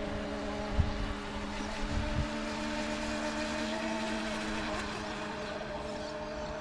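Electric motors of an RC speedboat whining at a steady pitch as the boat runs on the water, with two brief low thumps about a second and two seconds in.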